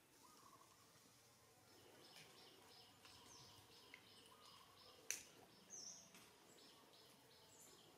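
Faint outdoor background of small birds twittering in short, high chirps, with one sharp click about five seconds in.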